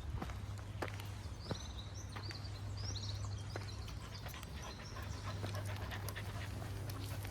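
A dog panting close by, with scattered footfalls on the trail. A few quick high bird chirps come about two and three seconds in.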